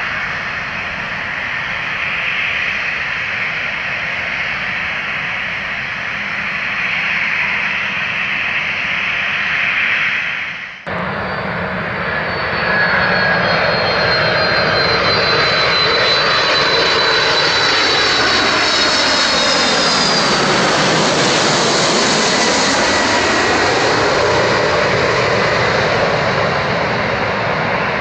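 Jet airliner engines, steady for the first ten seconds or so. After an abrupt cut, a jet airliner comes in low to land: its engine whine falls in pitch as it nears and passes, over a whooshing sweep that dips and rises again.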